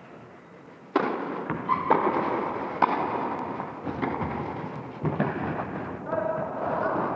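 Tennis rally on an indoor court: sharp wooden-racket hits on the ball about a second apart, starting with the serve about a second in, over a steady background of hall noise.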